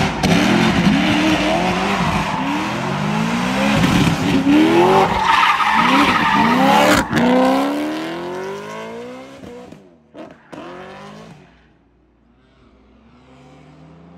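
Straight-piped, supercharged BMW M3 E90 V8 revving hard up and down while drifting through a hairpin, with tyres squealing. The engine cuts off sharply about halfway through, then fades away as the car drives off, and a fainter engine comes in near the end.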